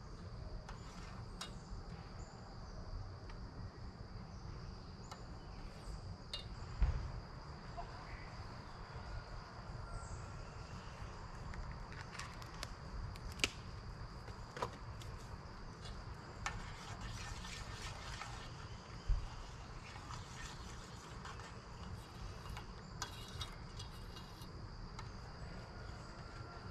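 Insects singing: one steady, high, unbroken drone. Over it come scattered sharp clinks and knocks of a pot and utensils being handled at a camp stove, the loudest about a third of the way in, about halfway and about two-thirds of the way in.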